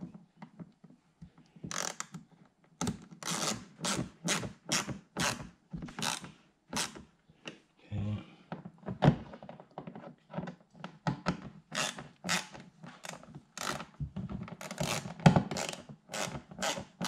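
Screwdriver turned by hand, driving a screw into the winglet on a C7 Corvette's front splitter: a quick run of short clicks and scrapes, about two a second, one with each twist of the wrist.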